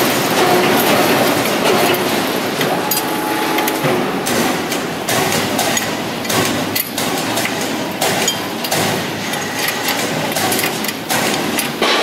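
Factory workshop noise: a steady mechanical din with frequent sharp metallic knocks and clanks of tools on steel. A short whine cuts in about three seconds in.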